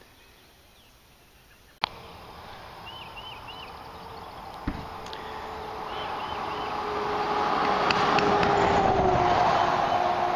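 A motor vehicle's engine and road noise, rising steadily over several seconds and dropping a little in pitch near the end, as if passing close by. Short repeated bird chirps sound over it, and there is a single low thump about halfway through.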